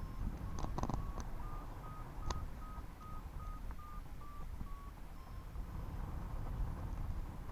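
Paraglider variometer beeping about three times a second, the beeps rising a little in pitch and then falling and stopping about five seconds in: the climb in a thermal strengthening, then fading away. Wind rushes over the microphone underneath, with a few crackles about a second in.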